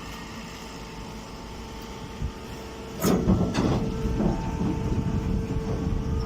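Hydraulic corn straw baler running with a steady machine hum. A little past halfway comes a loud burst of clattering and knocking that carries on to the end.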